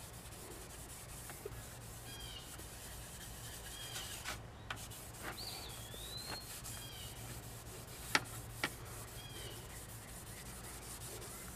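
Steel wool rubbed back and forth over the steel plate of an E.C. Atkins handsaw with metal polish, scrubbing off leftover rust and corrosion. The rubbing is faint and steady, with two sharp clicks a little past the middle and a few short high chirps.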